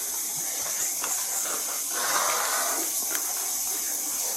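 Steady high-pitched hiss with faint rustling.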